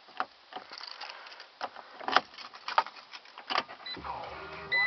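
Keys rattling and clicking as the key is put into and turned in the ignition of a 2012 Fiat 500 Pop, heard from inside the closed cabin. About four seconds in, the 1.4-litre four-cylinder engine cranks and catches, and just before the end a steady high electronic tone starts.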